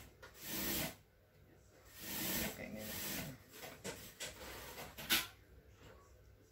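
Hands rubbing and wiping the bare glass of an LCD panel to clear leftover polarizer-film glue: a short rasping stroke near the start and a longer one about two seconds in, then smaller scrapes and one short sharp sound about five seconds in.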